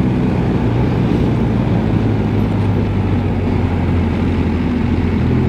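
BMW R1250 GS Adventure's boxer-twin engine running steadily under way through a bend, with the rush of wind and road noise over it.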